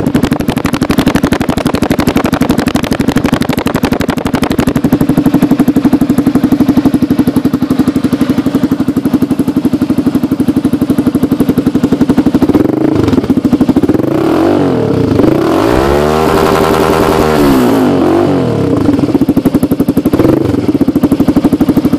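Yamaha Fazer 150's single-cylinder four-stroke engine running through a Roncar aftermarket sport exhaust. It idles steadily, is revved up several times past the middle, is held high for a couple of seconds, then drops back to idle near the end.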